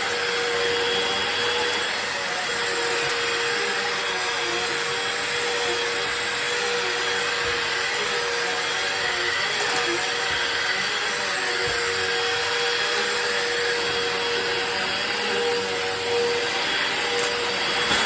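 Hoover WindTunnel 2 Rewind Pet upright vacuum cleaner running steadily: a constant motor hum and whine over the rush of air.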